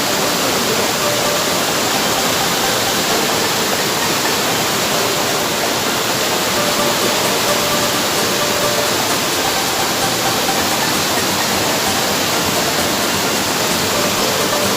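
Waterfall pouring, a loud steady rush of falling water that stays even throughout.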